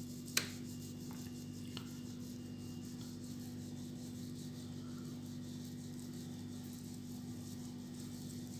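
A sharp click about half a second in and a fainter tick a second later as plastic petri dishes are moved on the bench, over a steady low hum.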